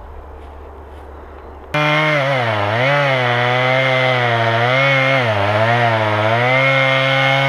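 Chainsaw cutting into the base of a pine trunk at high revs. Its engine note dips again and again as the chain bogs in the cut, then picks back up. It starts abruptly about two seconds in, after a low steady hum.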